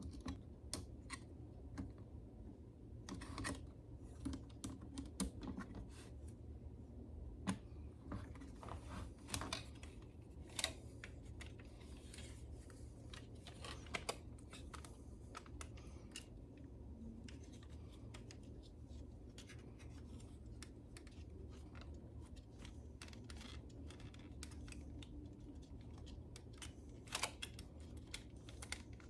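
Irregular small clicks, taps and scratches from hands and tools working on a CD receiver's pickup mechanism, over a steady low hum.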